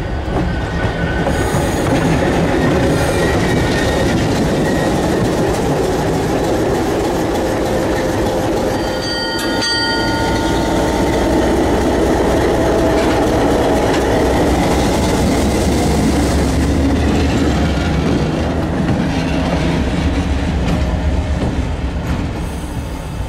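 Mohawk, Adirondack & Northern diesel locomotive 2455 passing close by at low speed, its engine running with a steady rumble and its wheels clattering over rail joints and switch points. A short high-pitched squeal sounds about nine and a half seconds in.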